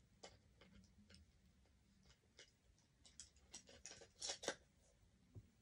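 Faint plastic clicks and taps as the battery cover is fitted back onto a Furby toy, with a small cluster of clicks about four seconds in.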